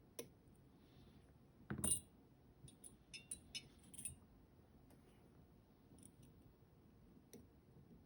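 Faint metallic clicks and ticks of lock picks and a tensioner working the pins of an Alpha FB high-pin-count lock, with one louder knock about two seconds in and a cluster of sharp clicks just after.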